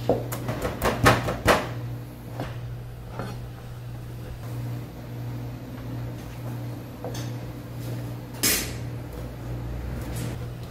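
A kitchen knife knocking on a plastic cutting board in a quick run of strokes during the first second and a half, then a few scattered knocks and one louder clatter about eight and a half seconds in. A steady low hum runs underneath.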